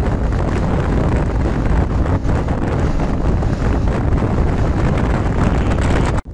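Steady wind buffeting the microphone of a Vespa scooter riding at speed, with the scooter's engine and road noise underneath.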